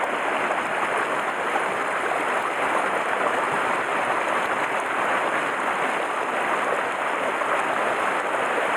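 Mountain stream rushing over rocks: a steady, even flow of water.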